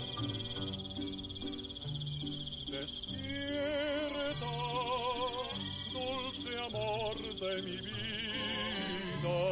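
Crickets chirping steadily over the instrumental opening of a Mexican serenade song. A bass line plays throughout, and a melody with wide vibrato comes in about three seconds in.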